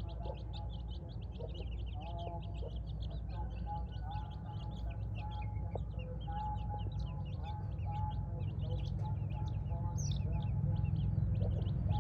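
A group of baby chicks peeping continuously, many short high cheeps overlapping several times a second, with some lower, longer calls mixed in and a steady low rumble beneath.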